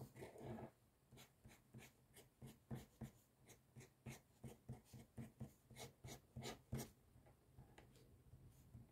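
Calligraphy marker dabbing short strokes and dots onto paper: a quick irregular run of light ticks, about three a second, after a brief rustle at the start, thinning out near the end.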